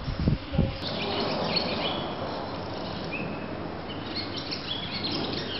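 Small birds chirping repeatedly over a steady background noise, after a few low thuds in the first second.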